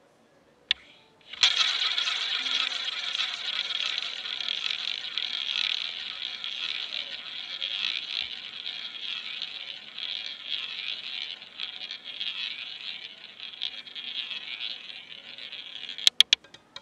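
Roulette ball spun by the dealer, rolling around the track of a wooden roulette wheel with a steady rolling rattle for about fifteen seconds. Near the end it drops and clatters in a quick run of sharp clicks as it bounces into a pocket.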